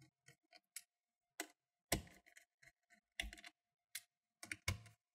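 Plastic clips of a Dell G3 15 laptop's bottom cover snapping into place as the cover is pressed down: a series of sharp clicks, the loudest about two seconds in.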